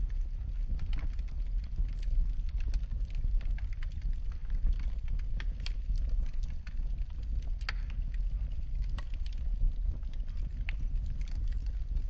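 Wood fire crackling in a fireplace: many small sharp pops and snaps, irregular and a few louder than the rest, over a steady low rumble of the flames.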